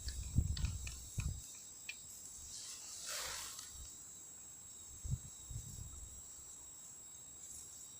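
Knocks and clicks of handling close to the microphone during the first second and a half, then a soft swish about three seconds in and two dull thumps a couple of seconds later, over a faint steady high whine.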